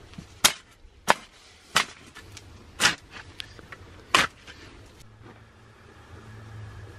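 Garden hoe chopping into loose soil, five sharp strikes at irregular intervals over about four seconds, then quieter.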